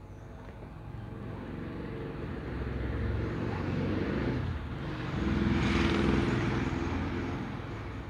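A motor vehicle's low engine rumble passing by, swelling twice and loudest about six seconds in before fading.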